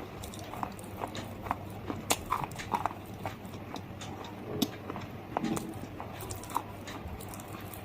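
Close-up chewing and crunching of slate stone pieces: irregular sharp, crisp cracks between the teeth.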